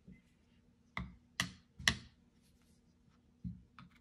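Sharp clicks and taps of a screwdriver and a Yamaha Moto-4 350 carburetor being picked up and handled: three clicks in the first two seconds, then two smaller ones near the end.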